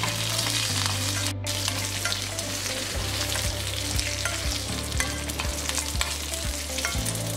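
Tempering for coconut chutney: fresh curry leaves, dried red chillies and urad dal sizzling and crackling in hot oil in a kadai, while a metal spoon stirs them around the pan.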